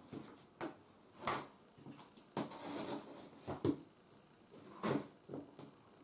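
A utility knife cutting the packing tape on a cardboard box: a series of short, irregular scraping rasps, with one longer stroke a little before the middle.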